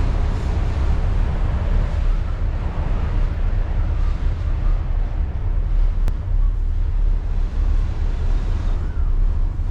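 Strong gusting wind buffeting the microphone: a deep rumble with rushing noise on top, rising and falling irregularly with the gusts.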